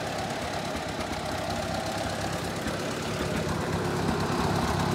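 Ford 860 tractor engine running steadily under load while the Massey Ferguson Dyna-Balance sickle bar mower clatters as it cuts standing oats, a little louder toward the end.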